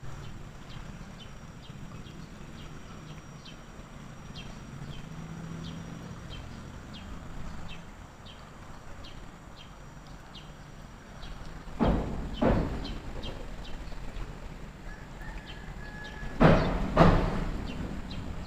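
Short high chirping calls, about two a second, over a low steady hum. They are broken by two pairs of loud, sudden thuds, about twelve seconds in and again about sixteen and a half seconds in.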